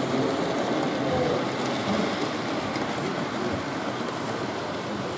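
Model train running on an exhibition layout: a steady rumble of wheels on track with faint light clicks, over the even hubbub of an exhibition hall.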